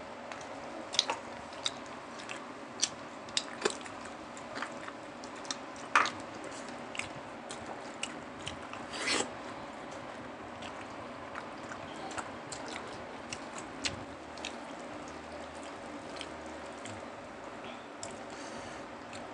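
Close-miked eating sounds: chewing, lip smacks and sharp crunchy clicks as people eat pork with their hands, busiest in the first half, with a longer slurping sound about nine seconds in.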